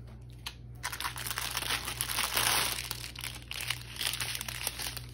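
Clear plastic bags holding diamond painting drills crinkling as they are handled, after a few faint clicks in the first second.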